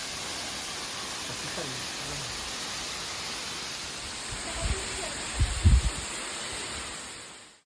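Waterfall rushing steadily, with a few low bumps on the microphone about four and a half to six seconds in and faint voices under it. The sound fades out just before the end.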